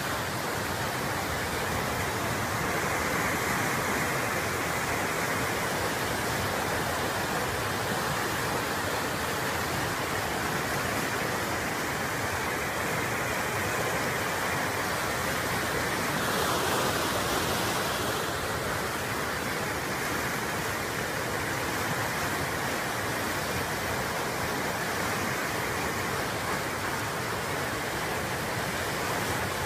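Steady rush of water from an approaching flash-flood front coming down a dry riverbed, with a brief hissier stretch about two-thirds of the way through.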